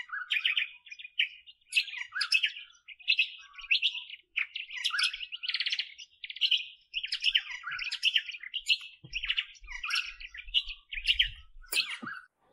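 Birds chirping and singing in a dense run of short, high calls and trills with barely a pause: a dawn chorus at the water's edge.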